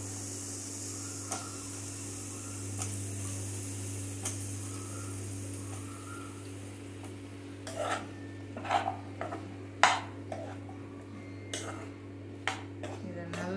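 Cut brinjal (eggplant) pieces sizzling as they go into hot oil in a non-stick frying pan, a steady hiss over a low hum. From about eight seconds in, a slotted steel spatula scrapes and knocks against the pan in sharp strokes as the pieces are stirred.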